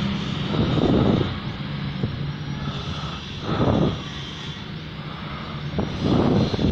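A steady low motor hum with three brief swells of rushing noise, about two to three seconds apart.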